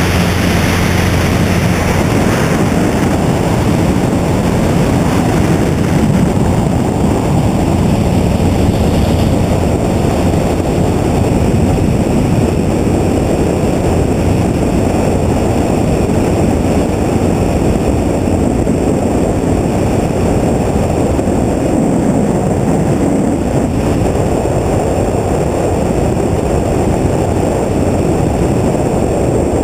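Helicopter in flight: loud, steady rotor and engine noise mixed with wind rushing over the camera's microphone.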